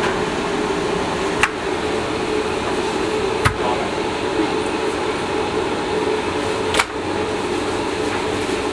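Steady mechanical hum, with three sharp knocks a couple of seconds apart as pieces of raw beef are dropped into an empty aluminium kazan.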